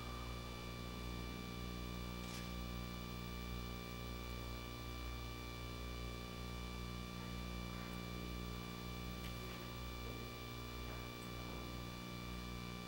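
Steady electrical hum and buzz, with a faint click about two seconds in.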